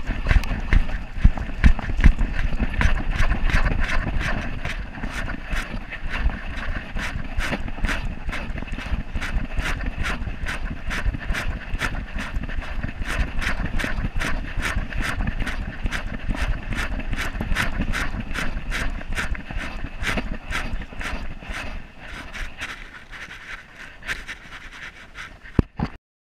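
Rhythmic clicking and knocking, about two and a half a second, from a GoPro head-mounted on a trotting Boston Terrier: the dog's gait jostles the camera and mount. Wind rumble on the microphone eases after the first few seconds, and the sound cuts off suddenly near the end.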